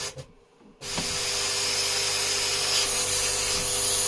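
Hiblow HP80 linear diaphragm air pump being switched on: a few faint clicks, then, just under a second in, it starts suddenly into a steady hum with a hiss of air that runs on without change.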